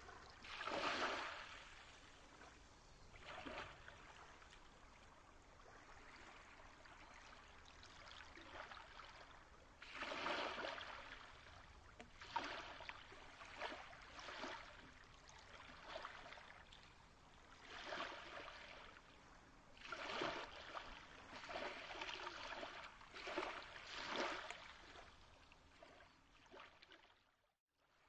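Faint flowing-water ambience, like a stream or gently moving water, swelling and fading every second or two, with a short dropout near the end.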